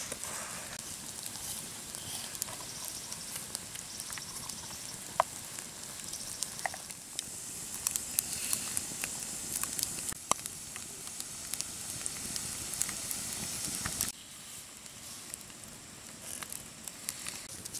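Wood fire crackling under freshwater mussels roasting on a bamboo grill, the juices in the open shells sizzling, with scattered sharp pops. About fourteen seconds in it drops suddenly to a quieter hiss with a few light clicks.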